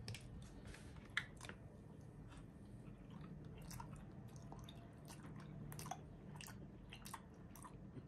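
Faint chewing: soft, scattered wet mouth clicks of someone eating a mochi, over a low steady room hum.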